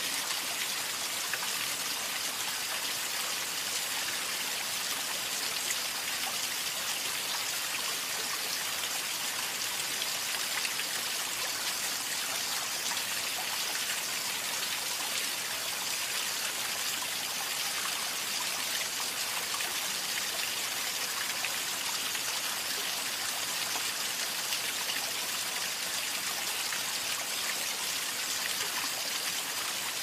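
A stream running over rocks: a steady, unchanging rush of water with fine splashing.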